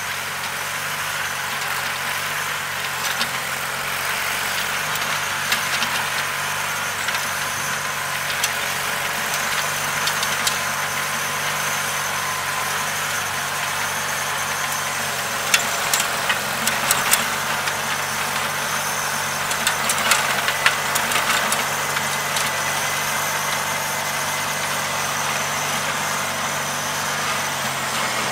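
John Deere 316 garden tractor's Onan B43 two-cylinder engine running steadily under load as its hydraulic rear tiller churns through sod. Scattered sharp clicks and knocks come through, bunched together around the middle.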